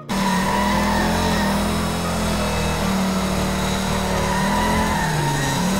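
Race car engine sound, a steady engine drone that starts abruptly and dips slightly in pitch near the end.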